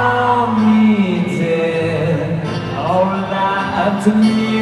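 Live acoustic performance: a male voice singing long, wavering held notes over acoustic guitar, with the reverberant sound of a large arena, recorded on a phone.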